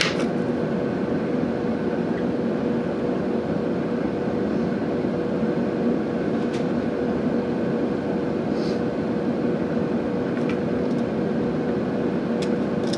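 Steady mechanical hum and rush with a constant low tone, and a few faint ticks.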